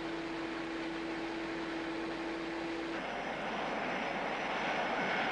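A steady hum over rushing air from the wind tunnel, which cuts off about three seconds in. A Boeing 747's jet engines then take over, with a high whine over a rush of exhaust noise that grows a little louder.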